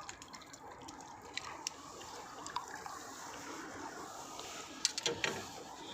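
Faint splashing and dripping water from a hooked crucian carp being played and brought in, with scattered sharp clicks that bunch together near the end.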